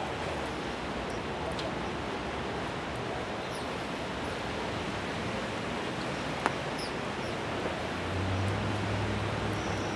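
Wet city street ambience: a steady hiss of rain and traffic on wet roads. There is one sharp click about six and a half seconds in. A low engine hum from a nearby vehicle comes up near the end.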